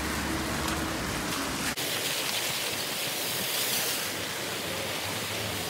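Rain shower falling on wet pavement as a steady, even hiss. For the first second and a half a low vehicle hum with a steady tone runs underneath, then it cuts off abruptly and only the rain hiss is left.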